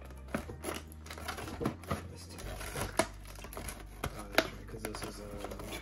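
Stiff clear plastic blister tray handled by hand, giving irregular clicks, taps and crackles, with sharper snaps about three and four and a half seconds in.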